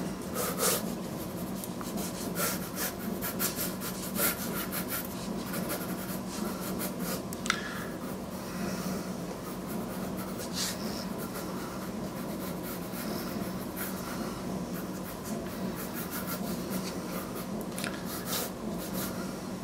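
Pencil sketching on watercolour paper: short, irregular scratching strokes of the lead across the paper.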